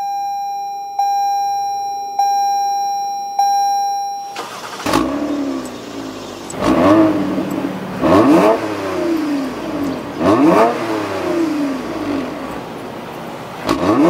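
A cabin warning chime dings four times, about a second apart. Then the 2020 Toyota Avalon TRD's 3.5-litre V6 is revved about five times through its TRD cat-back exhaust with stainless steel tips, each rev climbing quickly and falling away.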